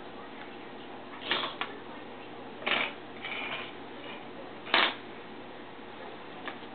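Metal fork batted by a cat's paw across a tile floor: a few short scrapes and clinks about a second apart, the loudest about two-thirds of the way through.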